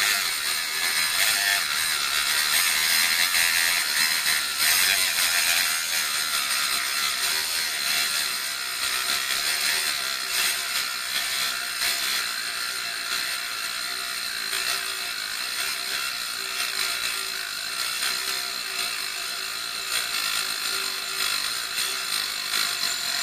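Harbor Freight Drill Master mini rotary tool running with a small cut-off wheel, grinding against a nail in a vise: a steady high motor whine over abrasive grinding. The tool is held lightly because it bogs down under pressure, and it cuts through the nail very slowly.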